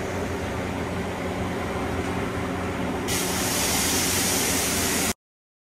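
Steady low machine hum with a noisy bed of shop sound. About three seconds in a louder steady hiss joins it, and everything cuts off abruptly about five seconds in.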